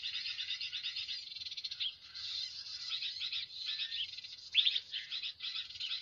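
Dense, rapid high-pitched twittering of many small birds, with a louder burst of calls about four and a half seconds in.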